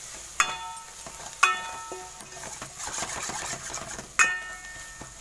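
Steel ladle stirring and scraping a sautéing onion-tomato masala in a stainless steel pan, knocking the pan rim three times with sharp ringing clinks. A faint sizzle of the frying masala runs underneath.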